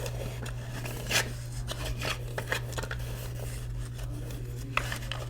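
Light handling sounds: soft rustling and a few scattered clicks, with a steady low hum underneath.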